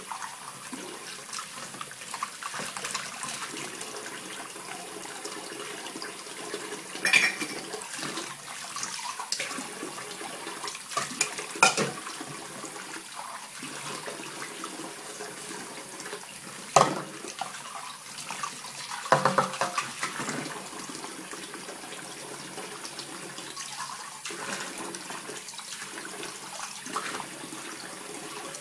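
Kitchen tap running steadily into a stainless steel pot in the sink, with a few sharp knocks and clinks of dishes and utensils being handled during washing up.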